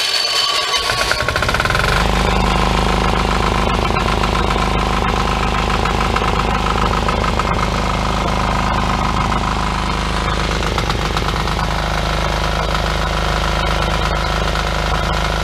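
A cold 178F Yanmar-clone single-cylinder air-cooled diesel engine being electric-started with the compression release held: the starter cranks it briefly, it catches about two seconds in and settles into steady running.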